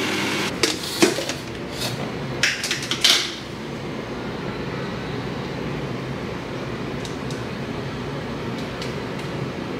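A blender's motor runs steadily and cuts off within the first second. A few seconds of knocks and clatter of kitchen things being handled follow, then a steady, even hiss.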